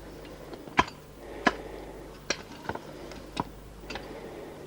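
Irregular sharp clicks and knocks, about six in four and a half seconds, of hardware being handled during work, over a faint steady hum.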